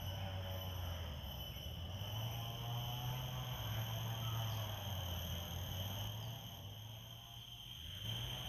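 Steady chorus of insects in a forest: several shrill, unbroken tones at once, with a low hum underneath.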